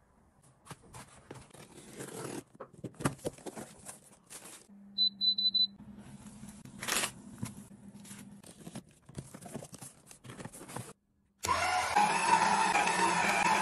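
Clicks, rubs and scrapes of a small household gadget being handled, then three quick high electronic beeps about five seconds in as a low steady hum starts, like a small appliance switching on and running. After a short silence near the end, background music begins.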